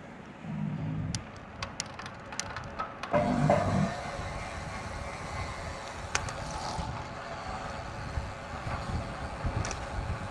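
Car traffic heard from a bicycle on the road, with a steady rumble and two louder swells of passing or nearby car noise. A run of sharp clicks comes between about one and three seconds in.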